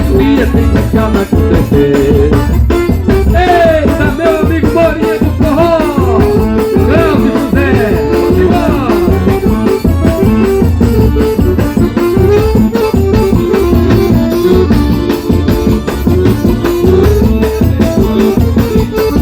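Live forró music played loud, with gliding melody lines over a steady, fast percussion beat.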